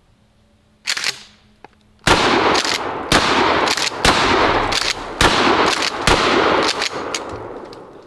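12-gauge pump-action shotgun firing buckshot: a single sharp bang about a second in, then a fast string of shots from about two seconds in, their blasts and echoes running together for some five seconds before dying away.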